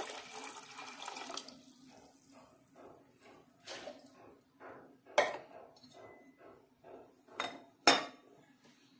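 Water pouring into a metal cooking pot, a rushing splash that stops about a second and a half in. Then light clinks and knocks follow, with three sharper knocks in the second half, typical of the pot and a container being handled.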